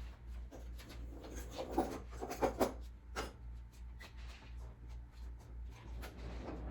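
Light handling noises: scattered clicks, taps and rubbing over a low, pulsing rumble.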